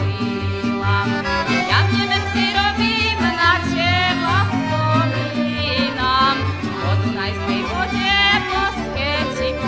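Folk band music: a lively instrumental melody over a steady, regular bass beat.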